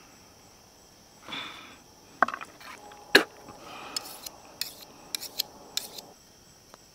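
A knife cutting and scraping a small fish on a table of wooden poles. It makes short rasping strokes and sharp knocks of the blade against the wood, the loudest knock about three seconds in.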